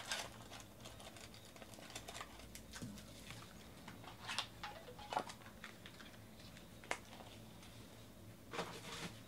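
Faint crinkling of a foil trading-card pack wrapper, with scattered light clicks and taps.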